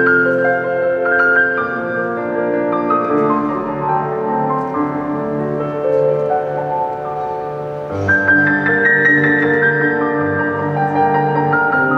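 Piano music playing held chords under a melody, swelling into a fuller, louder passage with a deeper bass about eight seconds in.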